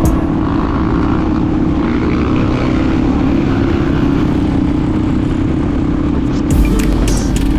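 Supermoto motorcycle engine running at a steady speed while riding, with a continuous rush of wind and road noise.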